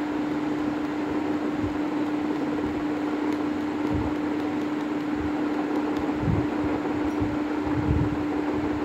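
A steady motor hum holding one constant tone over an even hiss, with a few soft low thumps now and then.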